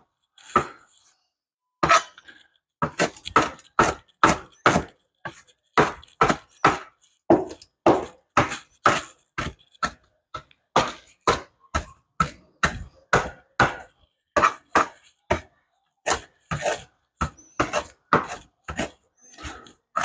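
Kitchen knife chopping fresh Italian parsley finely, a steady run of sharp strokes about two a second, beginning about two seconds in.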